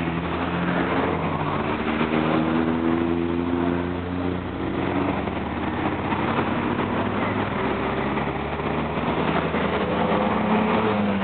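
Steady low engine rumble from passing motor vehicles, with several engine tones slowly rising and falling in pitch.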